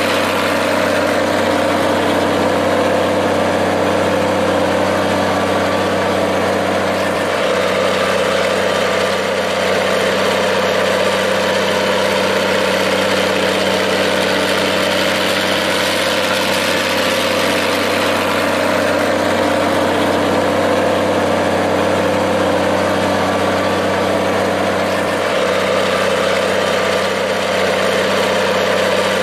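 Minneapolis-Moline G1350 tractor engine idling steadily, its pitch held even throughout.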